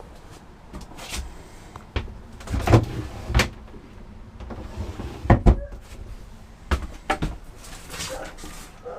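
A series of sharp knocks and clunks, irregularly spaced, the loudest about three seconds in and again about five and a half seconds in: the camper's doors or cabinet doors being opened and shut.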